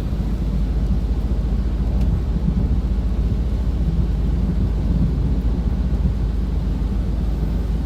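Steady low rumble of road and engine noise inside a moving car, with no distinct events.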